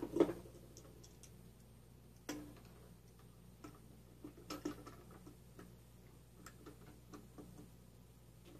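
Light metallic clicks and taps of steel parts being handled and fitted inside a Wheel Horse 8-speed transmission case as the shift forks are installed. Two loud clicks come at the start, a sharper knock about two seconds in, and a small cluster of clicks around four and a half seconds, with fainter scattered ticks after that.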